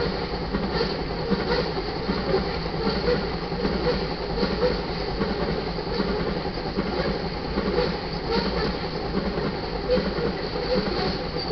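Iron ore cars of a freight train rolling past: a steady rumble of steel wheels on rail, with irregular clicks as the wheels pass over rail joints.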